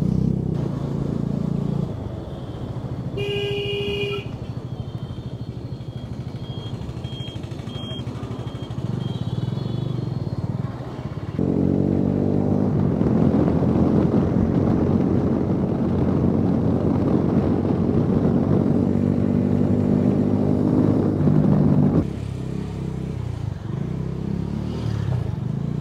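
Motorcycle engine running on the road, its note much louder for about ten seconds in the middle before dropping back. A short vehicle horn sounds about three seconds in.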